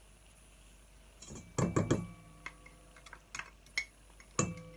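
Kitchen utensils and dishes clinking and knocking: a cluster of knocks about a second and a half in, lighter clicks after, and another knock near the end, some leaving a brief ringing tone.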